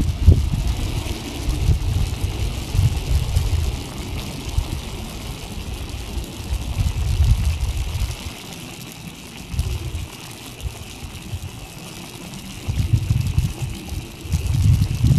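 Wind buffeting the camera microphone in irregular low gusts, easing off for a few seconds past the middle, over a steady faint hiss.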